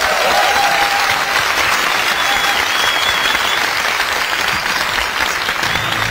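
Theatre audience applauding loudly, a dense steady clapping that swells up at the start and holds.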